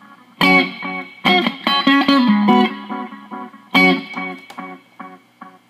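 Electric guitar chords played through a repaired MXR Carbon Copy analog delay pedal into an amp, four strummed chords in all. Each chord is followed by evenly spaced echo repeats, and the repeats fade away near the end, a sign the delay is working.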